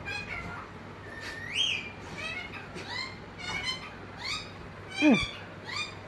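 Indian ringneck parakeet giving a run of short, high calls that rise and fall in pitch, about nine in six seconds. The loudest call, about five seconds in, sweeps steeply down.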